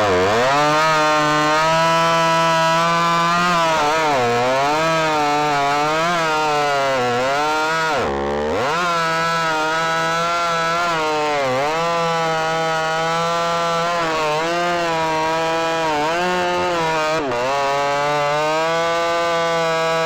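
Ported Stihl MS310 two-stroke chainsaw with an Ironhorse-style open muffler and 28-inch bar, running at high revs while sawing cherry slabwood. Its pitch sags under load every few seconds and picks back up between cuts.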